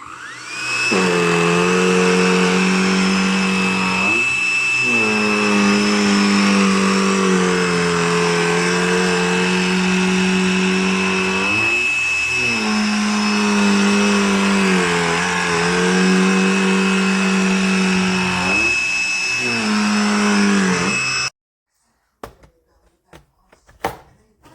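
Cordless handheld vacuum switched on, its motor spinning up within a second to a steady high whine over a lower hum. The hum drops in pitch and recovers several times. Near the end it cuts off suddenly, followed by a few light knocks.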